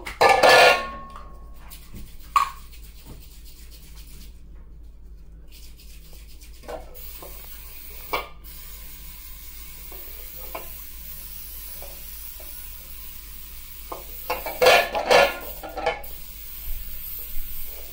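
Metal bundt pan being handled, with knocks and clatter, then near the end a short hiss from an aerosol can of cooking-oil spray greasing the pan.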